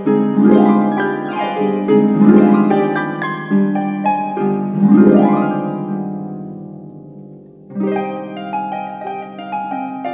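Concert pedal harp playing flamenco-style music: loud plucked chords with several quick upward rolled sweeps, then a chord left ringing and fading for a couple of seconds before softer repeated plucked chords come in about three-quarters of the way through.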